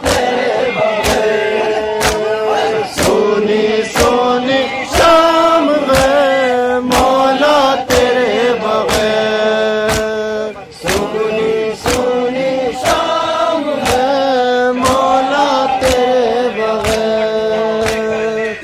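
A group of men chanting a noha (Urdu lament) in unison, over a steady rhythm of sharp chest-beating slaps (matam) that fall roughly every second.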